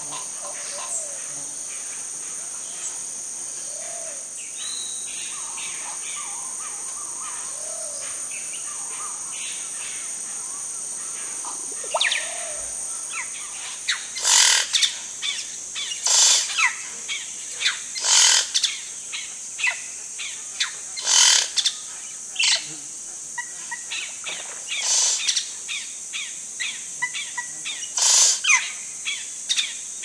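Caciques calling at a palm-top nest: loud, sharp notes repeated about every two seconds from roughly halfway on. A steady high insect drone runs underneath, with fainter short bird notes in the first half.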